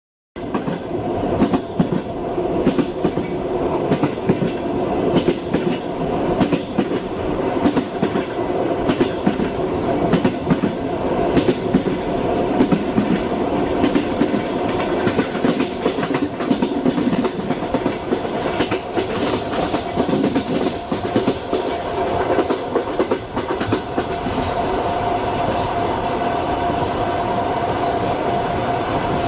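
Train wheels clattering over the rails: a rapid, irregular clicking over a steady rumble. About 24 seconds in, the clatter dies away and the rumble evens out.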